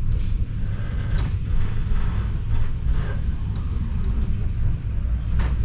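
Inside a moving Vityaz-M low-floor tram: a steady low running rumble, with a few brief sharp clicks. The loudest click comes near the end.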